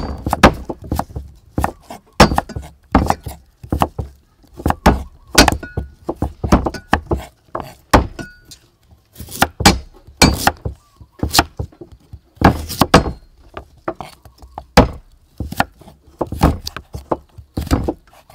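A kitchen knife slicing a carrot into thin strips on a thick round wooden chopping board. Each stroke knocks sharply on the board, in irregular runs of two or three a second with short pauses.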